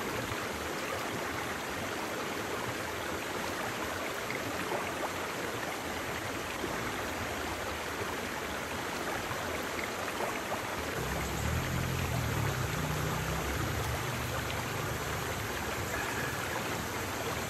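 Rushing river rapids, a steady hiss of fast-flowing water over rocks. A low rumble joins in about eleven seconds in.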